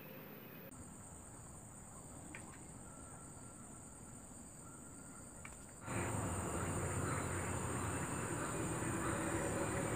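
Steady high-pitched insect chorus buzzing in the forest, which jumps clearly louder about six seconds in.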